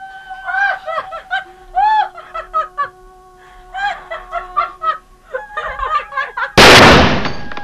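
Film score of sliding, wavering notes, cut through near the end by a single very loud handgun shot that fades out over a second or so.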